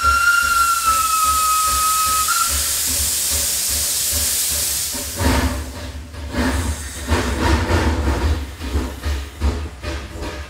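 Steam locomotive: its whistle blows one steady note that ends about two seconds in, followed by a loud hiss of steam, and from about five seconds in the engine chuffs in an uneven rhythm over a low rumble.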